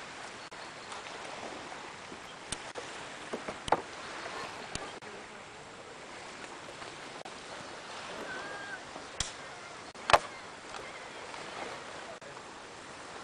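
Dry driftwood poles knocking against each other as they are leaned onto a teepee-shaped bonfire stack: a handful of sharp wooden knocks, the loudest about ten seconds in, over a steady outdoor hiss.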